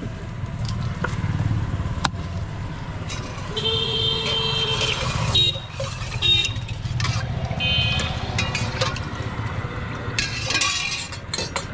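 Street traffic running steadily, with several short vehicle horn honks in the middle stretch and a few sharp metallic clinks from a steel ladle against steel pots.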